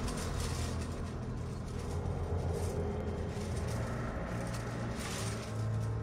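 Low, steady rumbling drone of a tense film underscore, with a light hiss above it.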